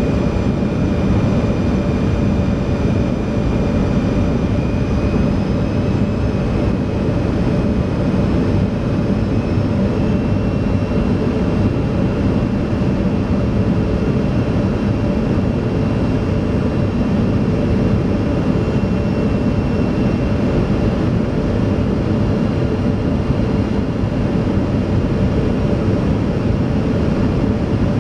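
Steady cabin noise of a Boeing 737-200 in flight, its Pratt & Whitney JT8D turbofan engines running, heard from inside the cabin. A thin high whine rides over the low drone and steps up slightly about ten seconds in.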